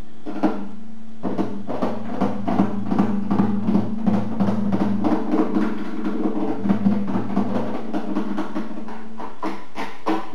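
A $5 Eclipse classical acoustic guitar played as a percussion instrument: quick, irregular taps and slaps on the body and strings in dense flurries, with a low note ringing underneath.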